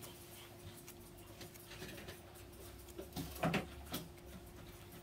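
Yorkshire terrier giving a couple of brief whimpers or snuffles about three and a half seconds in, while its ear is cleaned. Faint clicks and rustles of handling sit over a steady low hum.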